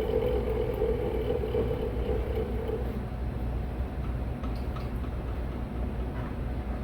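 Air handler blower motor pulley spinning with a horrible-sounding grinding whine that dies away about three seconds in: the motor's bearings are bad. A steady low rumble of other equipment runs underneath.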